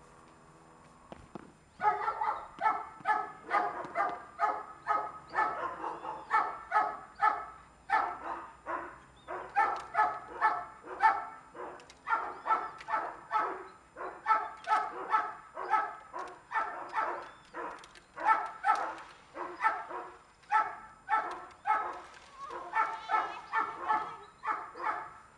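A dog barking over and over in a steady run of about two barks a second, starting about two seconds in.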